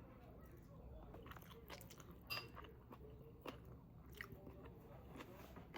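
A person eating and chewing food close to the microphone, with a few faint short clicks and crunches, the sharpest a little past two seconds in.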